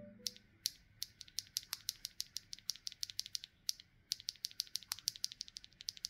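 MMD Holy Panda tactile mechanical keyboard switches being pressed in quick succession: a fast run of sharp clacks, about seven a second, with a short pause a little past the middle.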